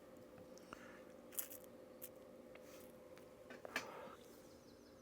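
Faint handling noises, a few soft clicks and rustles, as gear and a pouch are handled, over a steady low room hum.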